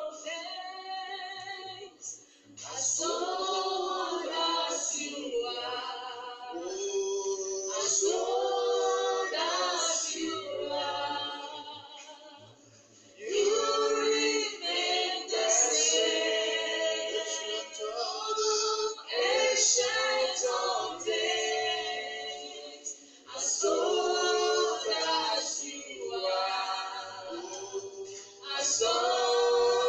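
A group of voices singing together in phrases, with a brief lull about twelve seconds in before the singing picks up again.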